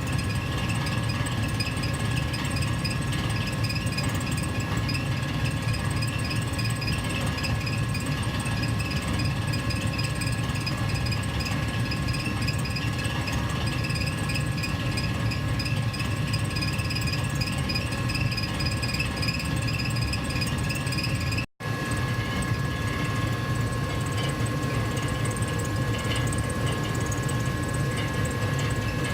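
Gas furnace heater running steadily: a low blower rumble with a couple of faint, steady high tones over it. It cuts out for an instant about two-thirds of the way through.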